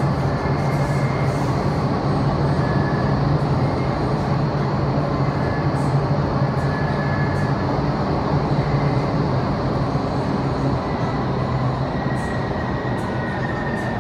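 Vertical wind tunnel running: the steady rush of air driven by its fans, with a low hum underneath, easing a little near the end.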